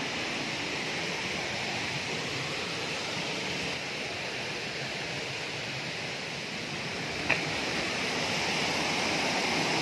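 Steady rushing of a small waterfall cascading over rocks, growing slightly louder near the end, with a single brief knock about seven seconds in.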